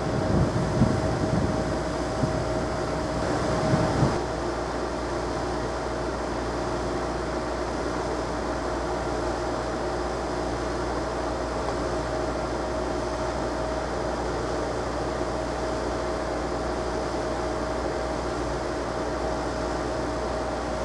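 Freight train's last cars rolling away over the rails, a low uneven rumble for about the first four seconds. After that only a steady hum with a constant tone remains.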